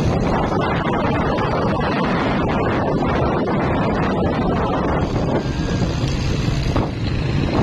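Wind buffeting the microphone over the steady rumble of road traffic.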